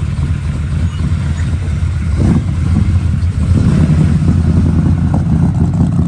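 Lifted Ford F-250 pickup driving away, its engine giving a steady low rumble that grows a little louder about halfway through as it pulls off.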